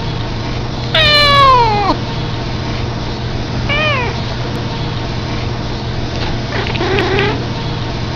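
A cat yawning out loud: one long call sliding down in pitch about a second in, then a short rising-and-falling chirp near the middle and a fainter call near the end.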